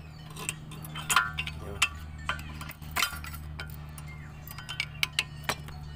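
Steel screwdriver clinking and scraping against a Mitsubishi Lancer's front brake pads and caliper bracket as a worn pad is pried out: sharp metallic clicks at irregular intervals, over a steady low hum.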